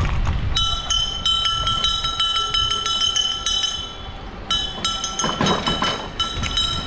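Rapid metallic clinking with a sustained ringing tone. It starts about half a second in, breaks off briefly around four seconds, then resumes.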